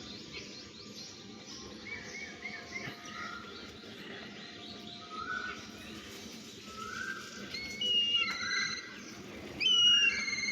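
Small birds chirping: a run of short whistled notes from several birds, growing louder with bursts of calls about eight and ten seconds in.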